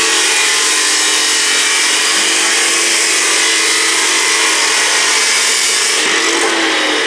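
Abrasive metal chop saw cutting through steel studs clamped in its vise: a loud, steady grinding hiss over the whine of the motor. Near the end the hiss eases and the motor's pitch begins to fall.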